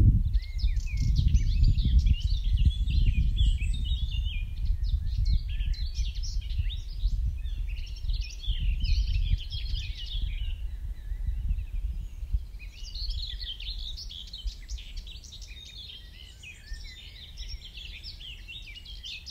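Dawn chorus: many small songbirds singing at once in quick, overlapping phrases, dropping out for about two seconds midway and then resuming. A low, uneven rumble runs underneath, loudest at first and fading away.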